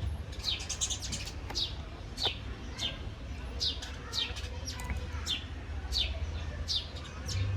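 Small birds chirping: short, high chirps that fall in pitch, about two a second and unevenly spaced, over a low steady hum.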